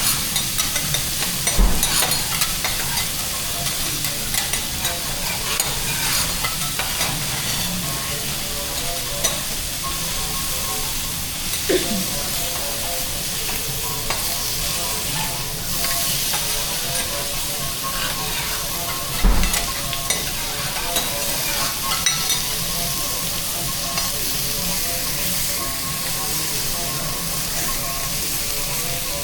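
Food sizzling on a teppanyaki steel griddle while metal spatulas stir and scrape it, with frequent sharp clicks of spatula on the plate and two louder knocks, about two seconds in and near the middle.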